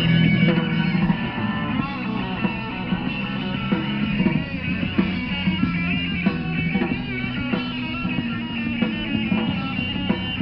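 Live punk rock band playing: electric guitar and bass guitar with drums.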